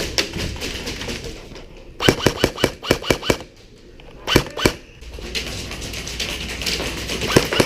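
Airsoft guns firing. A quick string of shots comes about two seconds in, two more a little after four seconds, and then a rapid, steady run of shots builds near the end.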